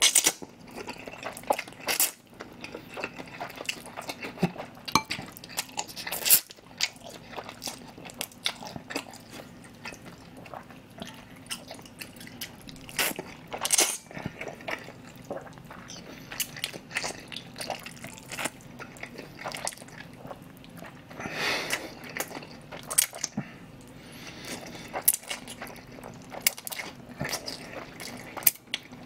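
Close-miked eating of thick, cold, spicy jjolmyeon noodles: slurping strands and wet chewing with many small clicks and smacks, with a few louder slurps along the way.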